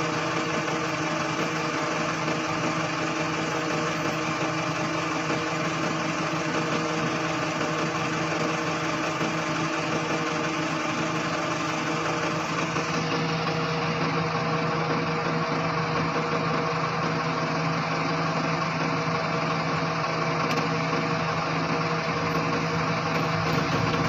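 A Dynapac road roller's diesel engine running at a steady speed, with an even hum that does not rise or fall.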